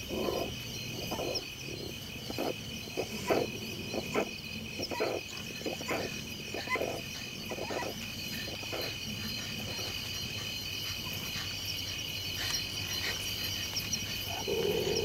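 Honey badgers mating inside a termite mound, giving a run of short, irregular low calls that are densest in the first half, over a steady chirring of crickets.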